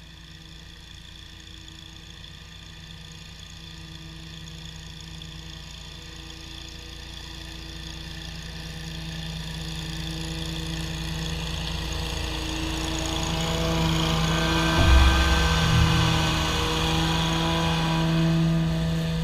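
Toro GrandStand stand-on mower's engine and cutting deck running steadily, growing louder as the mower approaches and passes close by. Two short low thuds come about three-quarters of the way through.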